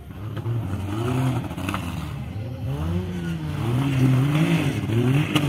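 Off-road 4x4 engine revving up and down repeatedly under load as the vehicle climbs out of a mud pit, with a sharp knock near the end.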